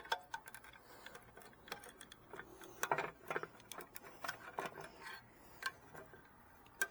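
Irregular clicks and light scrapes of a screwdriver and stiff Romex wire working inside an electrical box, as a ground wire is pried out through another opening.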